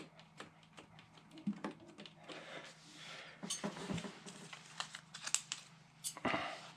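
Faint crinkling and small clicks and taps as a sticker is handled and pressed into place by hand.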